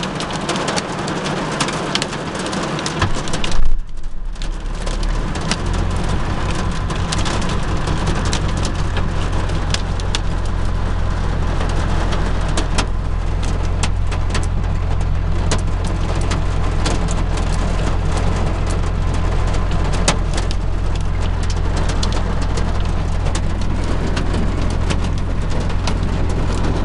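Rain and small hail drumming on a vehicle's windshield and roof, with many sharp separate hail strikes. About three and a half seconds in there is a loud thump, and from about five seconds a steady low engine idle runs under the rain.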